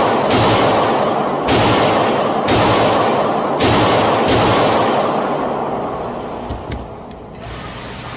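Beretta pistol fired five times at an uneven pace, about a second apart, each shot ringing on in the reverberant indoor range; the echo dies away after the last shot, about four seconds in.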